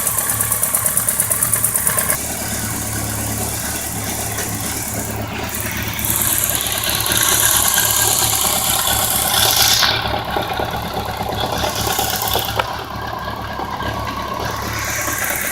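BMW K1200RS inline-four engine idling with the knock and ticking noise its owner is recording. It pulses rapidly for the first two seconds, then runs steadily, with a high hiss from about six to ten seconds in.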